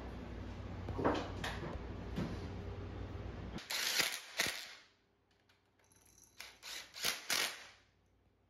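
Cordless impact driver running cylinder-head bolts down in two spells of short bursts, about halfway in and again near the end. The bolts are only being run in, not yet torqued. Under the first few seconds is a steady low hum that stops suddenly.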